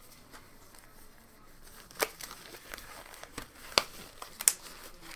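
Handling noises: light crinkling of plastic packaging with a few sharp clicks, about two seconds in and again near four seconds.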